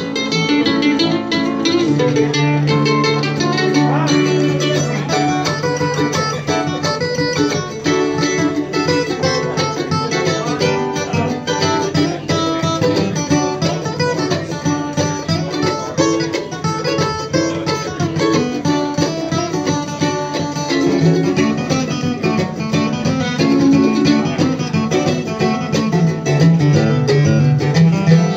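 Acoustic guitar and mandolin playing an instrumental bluegrass tune together, the guitar keeping a steady bass-and-strum rhythm under quick picked mandolin notes.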